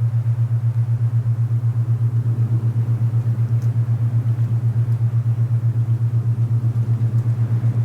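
Alpha binaural beat: a steady low hum that pulses evenly about nine times a second, over a soft rushing wind noise.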